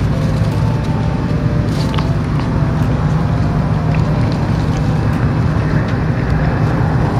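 Strong wind buffeting the microphone: a steady low rumble with scattered faint ticks.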